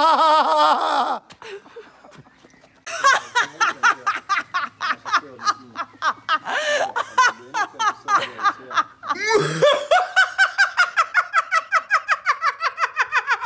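Loud, exaggerated laughter from different people in turn, done on purpose as a laughter exercise. A wavering burst ends about a second in, then after a short pause comes rapid cackling, and from about two-thirds of the way through one long run of fast, evenly spaced "ha-ha-ha" at a steady pitch.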